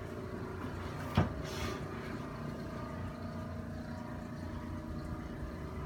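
A person shifting and sitting up on a chiropractic treatment table: one sharp knock about a second in, then a brief rustle, over a steady low room hum.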